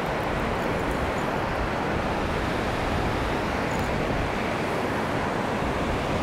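Steady wash of surf on the beach mixed with wind rumbling on the microphone, an even noise with no breaks.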